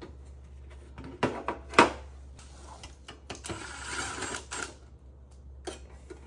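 An APC Smart-UPS C1500's casing being opened by hand: a few sharp clicks and knocks about a second in, the loudest near two seconds, then a second or so of scraping.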